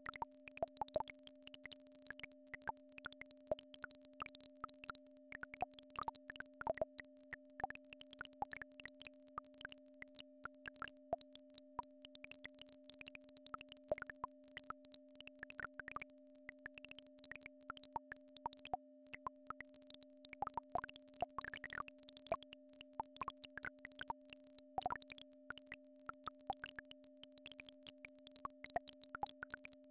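Synthesized frequency tone for brainwave entrainment, held steady at a low pitch with a second pitch about an octave above it. It sounds over a constant, irregular scatter of soft clicks and pops.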